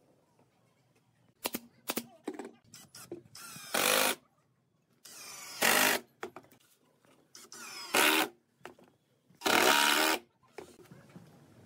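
Cordless drill boring holes through pine pallet boards in four short bursts, the last the longest, with a few sharp knocks and clicks before the first.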